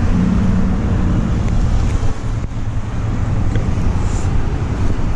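Steady rumbling wind noise on the microphone in heavy rain, with rain and street traffic under it.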